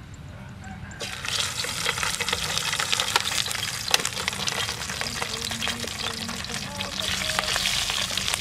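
Whole fish frying in hot oil in a pan on a portable gas stove, a dense sizzle full of crackles and pops. The sizzle rises sharply about a second in as a fish goes into the oil, and there is one sharp clack about four seconds in.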